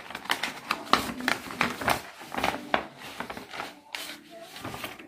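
Sheets of paper rustling and crinkling as they are handled and leafed through, in a string of irregular crackles.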